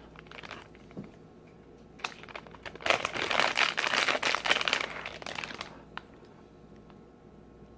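A plastic blind-bag packet being crinkled and torn open by hand: a few sharp clicks, then a couple of seconds of dense crackling, ending with a single click.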